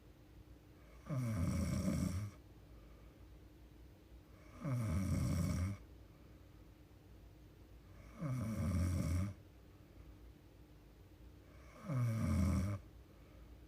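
A young woman snoring in her sleep: four even snores, each about a second long, coming about every three and a half seconds.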